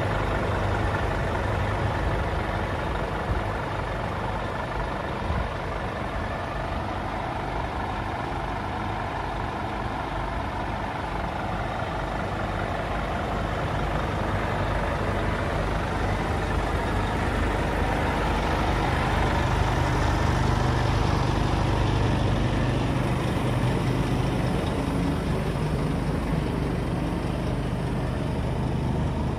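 Scania G360 truck's diesel engine idling steadily, a low even hum that grows somewhat louder about two-thirds of the way through.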